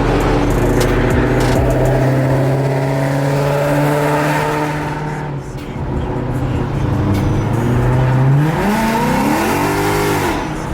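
Ford Mustang GT 5.0 V8 engine and exhaust while driving: steady cruising, then revving up under acceleration about eight seconds in, dropping again near the end.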